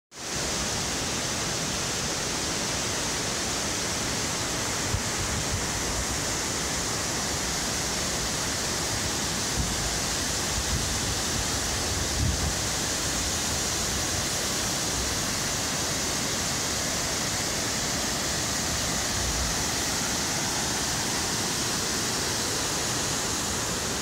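Steady, unbroken rush of the Vânturiș waterfall's falling water, with a few low bumps on the microphone.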